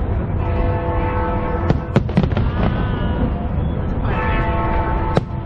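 Fireworks display: a continuous low rumble of bursts, with sharp cracks about two seconds in and again near the end, and long held tones over it twice.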